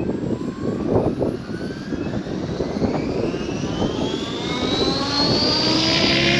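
Electric RC helicopter spooling up, its motor and rotor whine rising steadily in pitch over several seconds. Wind buffets the microphone.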